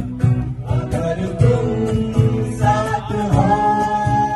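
A song: a singing voice holding long notes over a steady beat.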